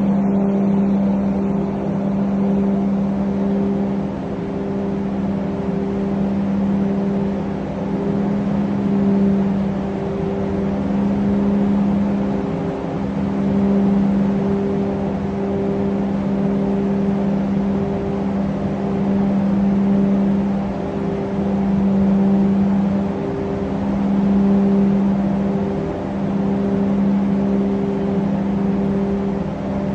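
Steady low machinery drone, with a strong hum and a higher tone that pulses on and off about once a second; the overall level swells and fades slowly.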